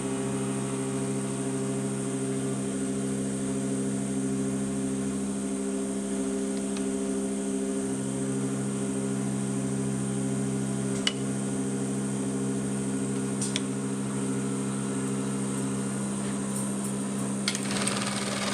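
Juki AMS-210EN computer-controlled pattern sewing machine running with a steady hum, with a few sharp clicks from its mechanism partway through.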